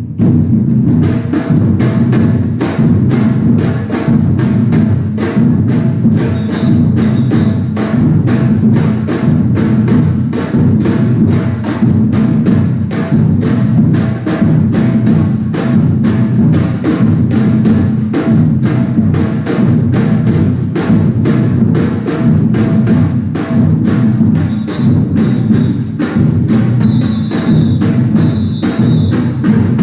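Batucada drum ensemble playing a steady samba groove together: the deep bass strokes of surdo drums under the quicker, higher hits of smaller repinique and snare-type drums.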